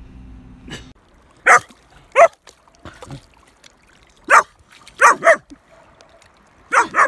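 German Shepherd puppy barking: short, sharp barks spaced about a second apart, some in quick pairs.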